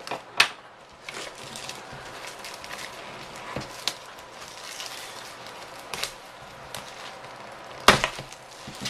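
Packaging being pulled off a new keyboard: scattered rustling and crinkling with sharp snaps, the loudest about half a second in and near the end.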